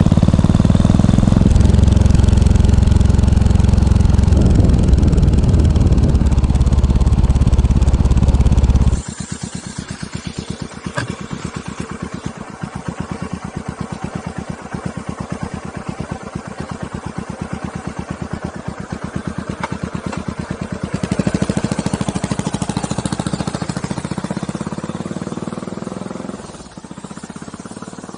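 Yamaha SR400's air-cooled single-cylinder four-stroke engine running through an aftermarket muffler. It is loud and deep at first, then drops abruptly to a quieter, steady, rapid thudding of single firing pulses. Near the end it swells louder and then fades.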